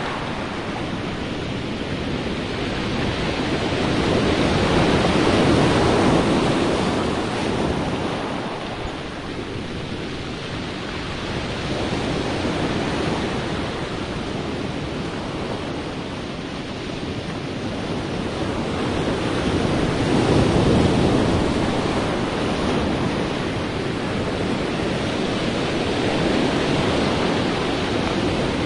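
Sea surf: waves rushing and washing in as a continuous noise, swelling louder about five seconds in and again about twenty seconds in.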